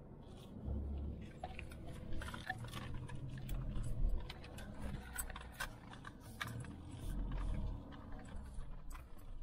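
A car crawling over a rough dirt and gravel track, heard from inside the cabin: an uneven low rumble with frequent small knocks and rattles as the wheels go over stones and the body jolts.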